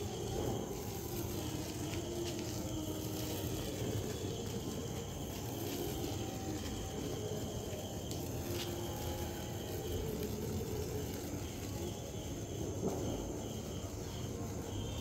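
Ground fountain fireworks hissing steadily as they spray sparks, with a few faint crackles. Crickets chirp in runs throughout.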